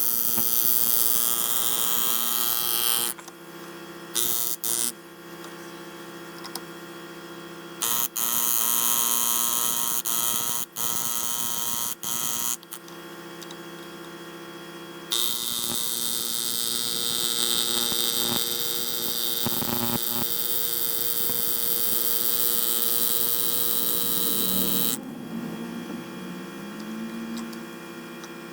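A small power engraving tool buzzing in bursts, switched on and off several times, over a steady hum. The longest run lasts about ten seconds in the second half.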